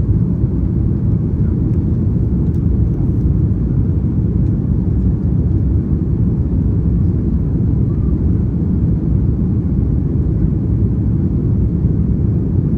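Steady low rumble of an Airbus A330 airliner, heard from inside the passenger cabin, even and unbroken throughout.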